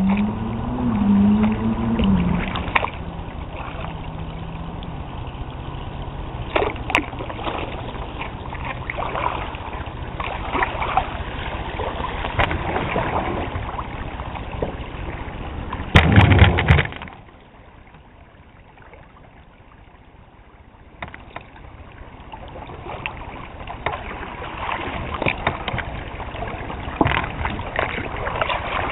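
Kayak paddling: the paddle dipping and splashing, with water dripping and sloshing against the hull. About sixteen seconds in there is one loud knock, then a few quieter seconds before the splashing picks up again.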